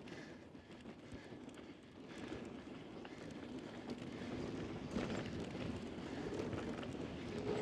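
Mountain bike rolling fast down a dusty dirt trail: steady tyre noise on the dirt with irregular rattles and knocks from the bike over bumps, a sharper knock about five seconds in.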